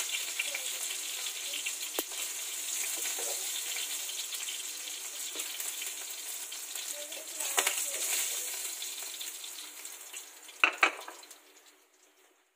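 Tuna chunks frying in hot oil in a nonstick pan, sizzling and spattering because the fish is fatty. A few sharp knocks of the slotted spatula against the pan are heard, the loudest near the end. The sizzle fades away near the end as the last pieces are lifted out.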